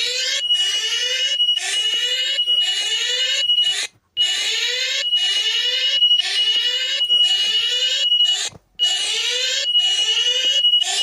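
Electronic alarm tone: fast repeated rising sweeps layered over a steady high-pitched tone, breaking off briefly twice, about every four seconds.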